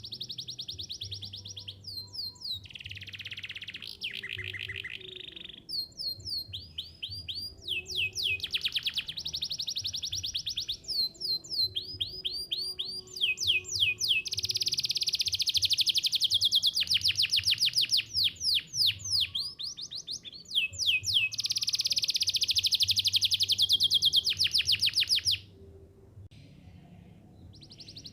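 Domestic canary singing: high-pitched phrases of rapidly repeated chirps and fast rolling trills, each phrase changing pitch. The song breaks off briefly near the end.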